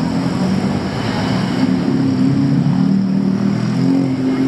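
A nearby engine running steadily with a low, even hum, over the general din of city traffic.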